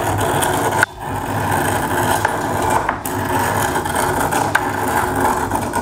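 Ice being shaved by hand against a metal blade into fine snow on a wooden board: a steady, rapid rasping scrape with a short pause just under a second in.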